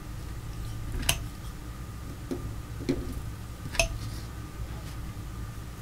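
Small handling sounds on a craft table: two sharp clicks, about a second in and near four seconds, with a few softer taps between, as paper is pressed flat and a metal palette knife is handled and set down. A low steady hum lies under them.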